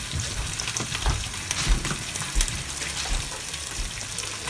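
Eggs sizzling in a frying pan, a steady hiss with a few soft knocks.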